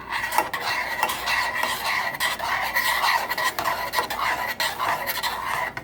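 A spoon stirring and scraping a thickening cornstarch and condensed-milk mixture around a saucepan: a continuous scrape with frequent small clicks against the pan.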